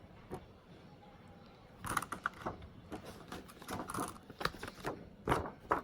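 Handling noise from a K-pop album and its packaging: a run of short clicks, taps and rustles starting about two seconds in.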